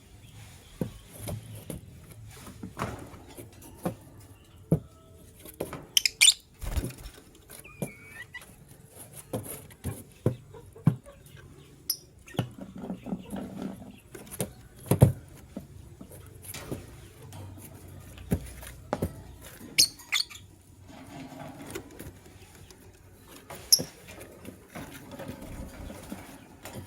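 Lovebirds moving about in a cage: irregular small clicks and taps, with a few short high chirps now and then.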